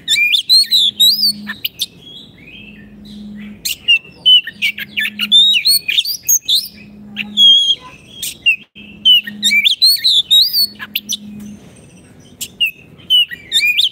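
Oriental magpie-robin (kacer) singing vigorously: loud, fast phrases of varied whistles, slurred notes and chirps, broken by short lulls about two seconds in and again near the end.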